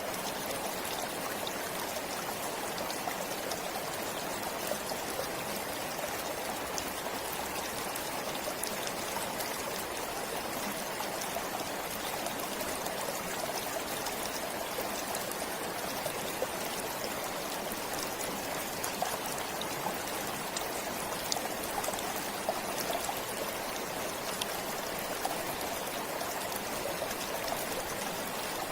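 Small stream flowing steadily, an even rush of water with tiny splashes scattered through it.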